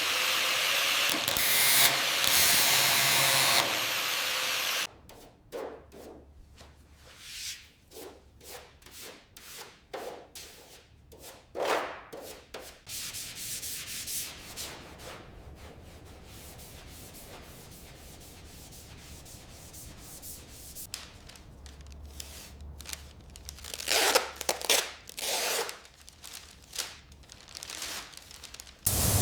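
A steady loud hiss for the first few seconds, cutting off suddenly, then irregular short strokes of hand sanding or rubbing on a surface, louder in a cluster near the end.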